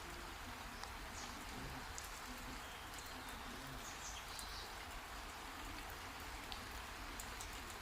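Heavy rain falling steadily, an even hiss with scattered drop ticks.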